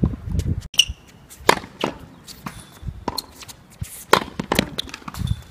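Tennis balls being struck by rackets and bouncing on the court: a series of sharp knocks, some in quick pairs, during a rally.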